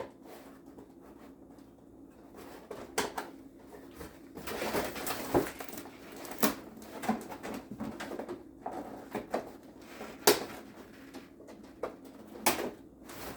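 Snips clipping the ties that hold a toy vehicle in its box, with plastic packaging rustling and being handled between several sharp snaps and clicks.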